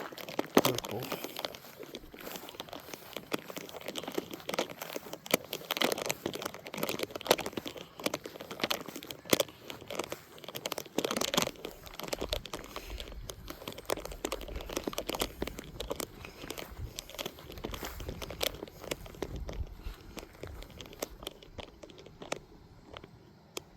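Close, irregular crackling and rustling, dense for most of the stretch and thinning out near the end, with a low rumble in the middle.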